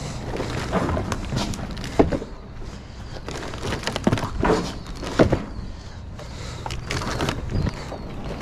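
Shrink-wrapped cases of plastic drink bottles being handled: plastic crinkling with irregular knocks and thumps as the cases are moved and set down. A low steady rumble runs underneath.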